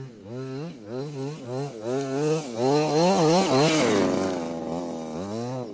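HPI Baja 5T 1/5-scale RC truck's small two-stroke petrol engine revving in quick, repeated blips. It is loudest about three seconds in as the truck passes close, then drops in pitch and gets quieter as it drives off, and starts blipping again near the end.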